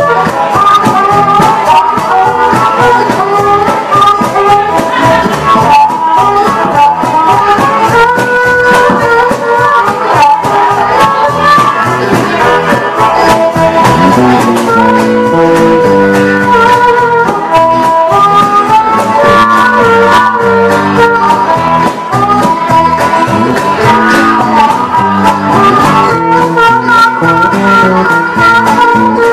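Live acoustic band music: strummed small string instruments under a melodic lead line of held notes, with no break.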